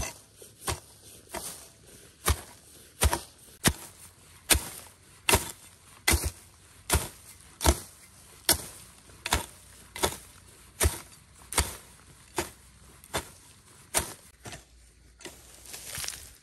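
Steady chopping with a hand tool, a sharp strike a little more than once a second, the blows growing weaker near the end.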